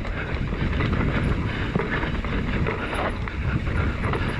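Mountain bike descending a dry dirt singletrack: tyres rolling over dirt and stones and the bike rattling over bumps, a steady rumble with constant clatter. Wind noise on the camera microphone.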